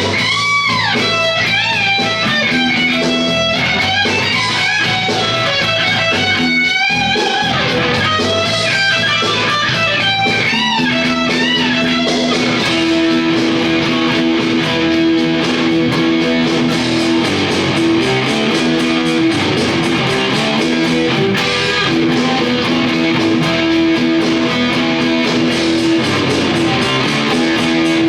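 Rock music with electric guitar: a lead guitar line with bending notes for about the first twelve seconds, then held chords over a steady backing.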